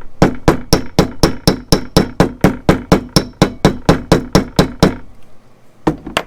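Quick, even mallet taps on a domed rivet setter, about four a second, peening a copper rivet head into a smooth, rounded dome. The tapping stops about five seconds in, and two more taps follow near the end.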